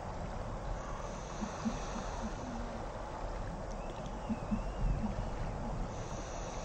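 Small catamaran ferry crossing a river, heard as a steady wash of water and wind noise with a low rumble beneath it.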